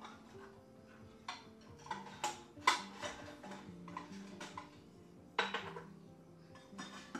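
Dishes and kitchenware clinking and knocking as they are handled, about ten light knocks spread unevenly, the sharpest a little under three seconds in and again past the halfway point, over soft background music.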